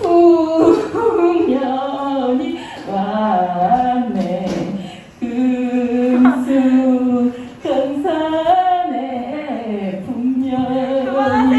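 A woman singing solo without accompaniment, in drawn-out phrases with long held notes. There are short breaks about five and seven and a half seconds in.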